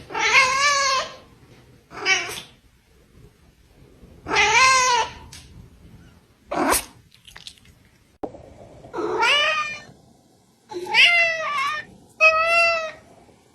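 A cat meowing again and again: about seven separate calls, most drawn out to under a second with a wavering pitch, and one short call in the middle.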